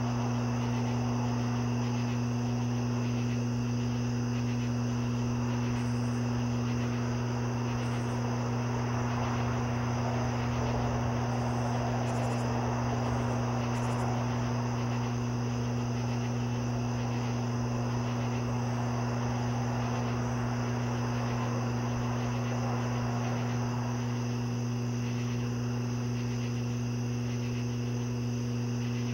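Steady night chorus of crickets trilling continuously, over a loud, steady low hum. A fainter rushing noise rises and falls around the middle.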